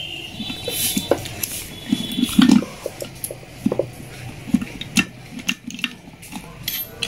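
Steel gearbox gears and shafts of a Hero HF Deluxe engine clinking and knocking against each other and the aluminium crankcase as they are fitted by hand. The loudest knock comes about halfway through.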